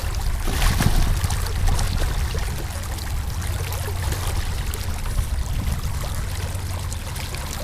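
Water sloshing and splashing alongside a small fishing boat over a steady low rumble, a little louder and crackly about a second in.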